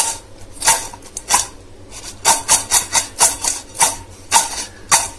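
Freshly fried French fries being tossed in a stainless steel bowl to coat them with chilli powder and salt: repeated scraping swishes, roughly two a second, with a short pause a little before the middle.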